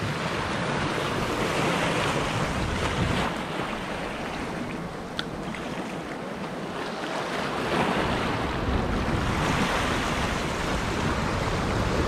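Sea waves washing and foaming against shoreline rocks, swelling and easing in surges, with wind rumbling on the microphone.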